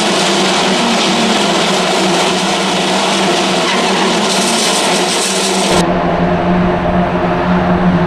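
A pack of single-seater race cars running through a corner, many engines overlapping. About six seconds in the sound changes abruptly to a deeper engine drone from the field.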